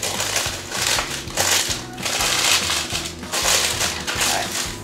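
Wax paper crinkling in repeated bursts as it is pressed and smoothed into the corners of a square metal baking pan, with background music underneath.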